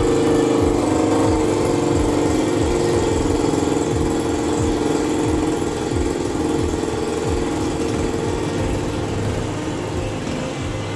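Wardill motorcycle's engine running steadily on a rolling-road dynamometer during its first tuning session, easing off a little over the last few seconds.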